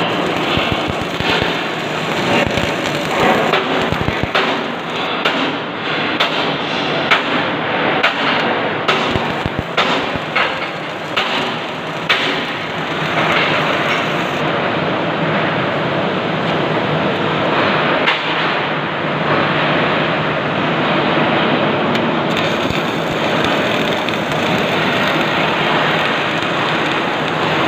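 CO2-shielded MIG welding arc crackling steadily. Sharp spatter pops come thick through the first half, then it settles into a more even sizzle.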